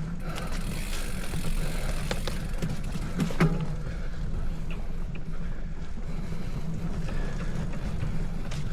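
Steady low rumble of wind on the microphone while a bicycle is ridden, with a few sharp clicks or knocks, the loudest about three and a half seconds in.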